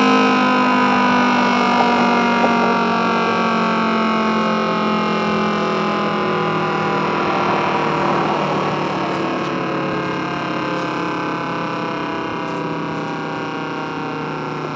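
Federal Signal Thunderbolt 1000 warning siren winding down at the end of its Alert signal. Its tone slowly falls in pitch and fades as the rotor coasts to a stop.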